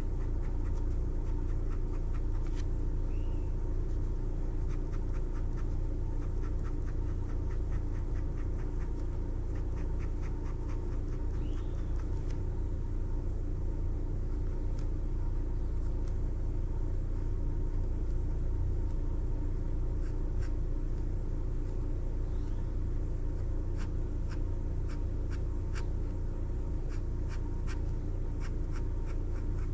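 Fine-tipped marker pen scratching quick short hatching strokes on sketchbook paper, in runs of rapid strokes, over a steady low hum.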